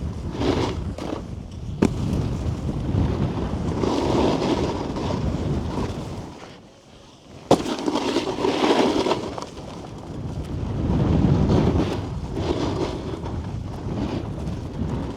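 A snowboard sliding and carving over packed snow, its edges scraping, with wind rushing over the microphone. About seven seconds in, the noise drops away for under a second, then a sharp thud comes as the board lands from the jump, and the scraping resumes.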